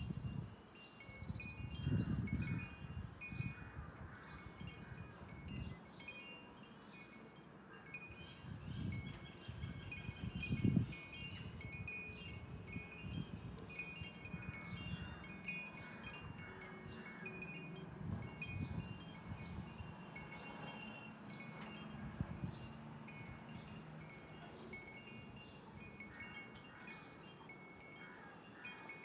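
Wind chimes tinkling continuously in short, high, irregular tones, with a few soft low thumps, the loudest about two seconds in and again around ten seconds.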